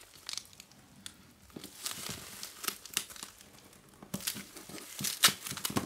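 Crinkling of a lithium-polymer cell's foil pouch and thin plastic gloves as hands work at the cell: an irregular scatter of crackles and small clicks, the loudest about five seconds in.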